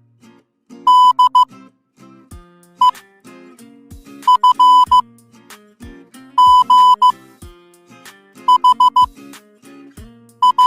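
Morse code sent as a high, steady electronic beep tone, in about six groups of short and long beeps (dits and dahs). Quieter background music with a steady drum beat runs under it.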